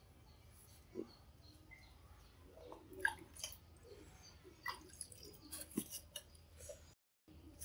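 Faint scattered clicks and light knocks as a plastic basin, weighted with a water-filled jar, and the tray under it are shifted and steadied by hand.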